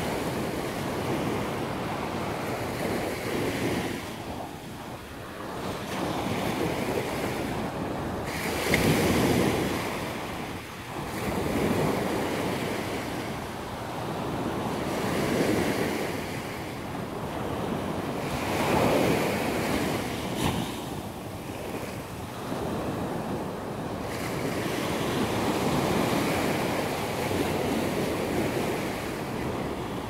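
Small surf breaking and washing up on a sandy beach, the wash swelling and easing every few seconds, with wind on the microphone.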